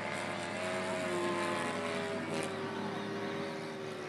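Radio-controlled Gee Bee model airplane flying overhead, its motor and propeller giving a steady pitched drone whose pitch shifts slowly up and down as it flies.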